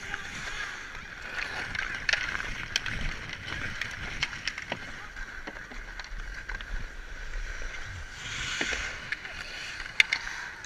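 Hockey skate blades carving and scraping across outdoor rink ice, with sharp clacks of sticks and puck and a longer hissing scrape about eight and a half seconds in. A crowd talks in the background.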